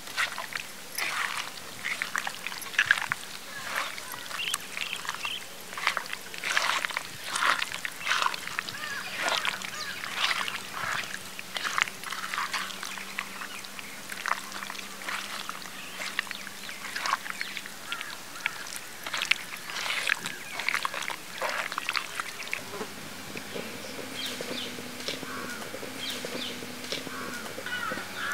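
Wet squelching and slapping of hands kneading raw chicken in a thick spice marinade in a clay pot, in quick irregular strokes. Bird calls join in near the end.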